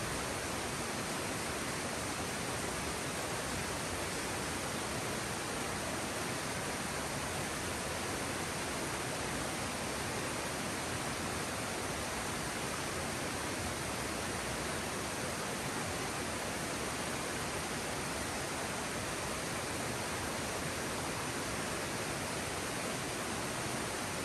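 Steady, even rushing of a flowing stream, unbroken throughout.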